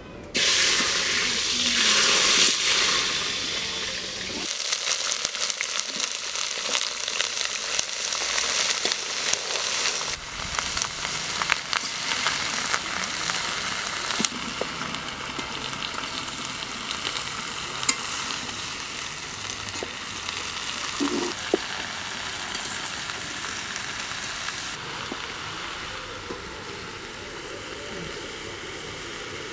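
Chopped mixed vegetables (cauliflower, green beans, carrot, potato) hitting hot oil in an aluminium kadai: a sudden loud sizzle that settles into steady frying. A metal spatula scrapes and clicks against the pan as they are stirred.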